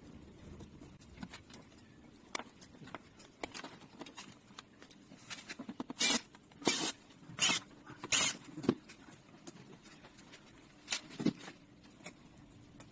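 Hand work on plastic parts and wiring while cutting away cable ties: scattered light clicks, then four short scraping rustles about six to eight and a half seconds in, and a couple more clicks near the end.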